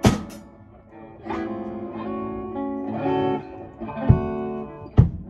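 A small band jamming: electric guitar chords ringing out over a chord progression, with a few drum hits, a loud one at the start and others near the end.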